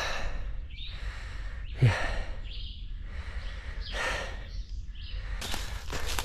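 A man panting hard, out of breath from a long hot uphill climb: heavy breaths in and out about once a second, with a loud low falling groan about two seconds in. Near the end, footsteps on dry leaf litter begin as he walks on.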